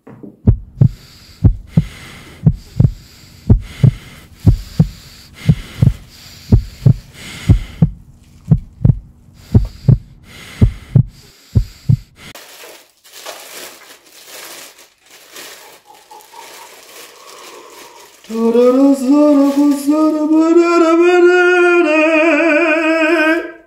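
Heartbeat sound effect: low thumps in lub-dub pairs, about one pair a second, stopping abruptly about twelve seconds in. Near the end comes a loud, drawn-out voice-like "aah" that rises slightly in pitch and cuts off abruptly.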